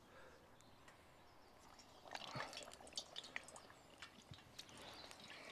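Battered slice of corned beef deep-frying in hot oil in a cast iron pot. Faint crackling and sizzling starts about two seconds in.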